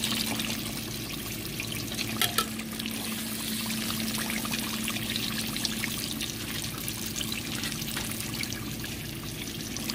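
Whiting fillets deep-frying in hot oil in a stainless steel pot: a steady bubbling crackle, with a couple of sharper clicks about two seconds in and a low steady hum underneath.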